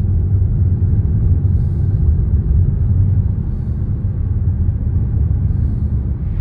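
Road and engine noise inside the cabin of a moving car: a steady low rumble.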